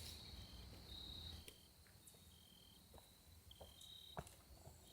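Faint crickets chirping over a steady high hum, in short repeated high notes, with a few soft clicks.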